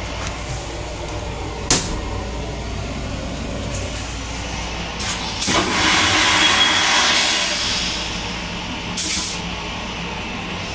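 Long Island Rail Road M9 railcar toilet flushing: a sharp click about two seconds in, then a loud rushing flush lasting about three seconds, and a short hiss about nine seconds in. Underneath runs the steady low hum of the railcar.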